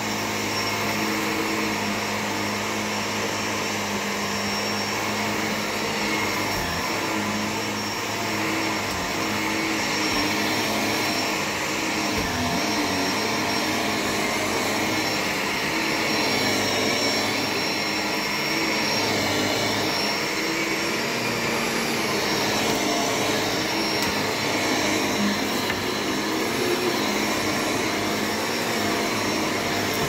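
Shark NV600 Lift-Away upright vacuum cleaner running steadily as it is pushed back and forth over carpet, with a constant high motor whine over the suction noise.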